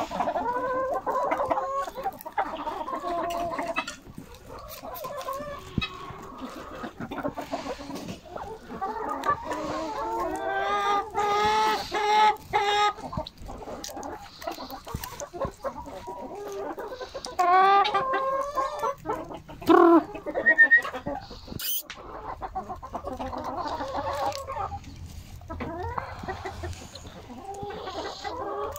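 A flock of hens and roosters clucking and calling while feeding, many calls overlapping. A run of louder repeated calls comes about ten seconds in and again near two-thirds of the way through, and a single sharp click a little later.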